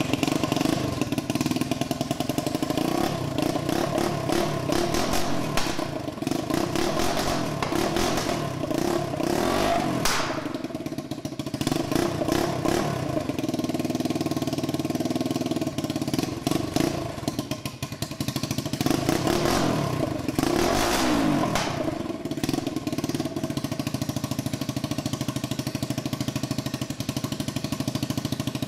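A 150cc single-cylinder motorcycle engine in a shifter kart is running on the stand, idling unevenly with sharp pops. It is revved up and back down twice, about eight and about nineteen seconds in, while the gears are run through. The owner finds the engine running lean and backfiring a lot.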